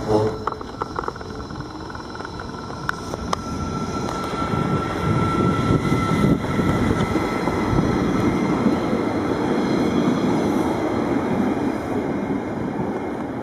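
Arriva Spurt (Stadler GTW) diesel railcar passing close by and pulling away, a rumble of engine and wheels that builds to its loudest in the middle and eases near the end. A steady whine runs through the first half.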